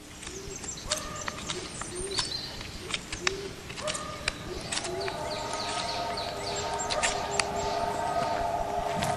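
Forest birds calling: a low, soft hooting call repeated about once a second under high, falling chirps, with scattered sharp clicks. From about halfway, steady held tones swell in and grow louder.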